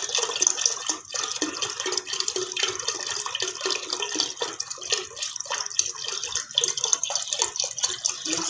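Milk pouring in a thin stream from a carton into a pan of milk: a steady splashing trickle.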